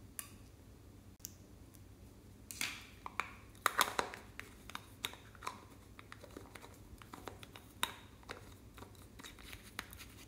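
Hands handling a green plastic egg-shaped container: a dense cluster of sharp plastic clicks and crackles about two and a half to four and a half seconds in, then scattered lighter clicks.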